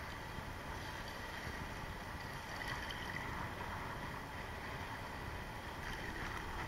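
Steady wind and rough, choppy sea water washing around a small boat, with a faint steady hum underneath.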